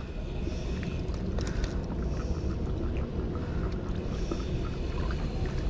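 Steady low rumble of wind and sea water against the rocks at the shoreline, with a few light clicks scattered through it.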